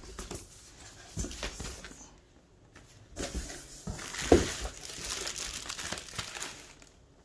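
Graphics card packaging being handled and opened: irregular crinkling and rustling with scattered clicks, a short pause, and a sharp knock about four seconds in.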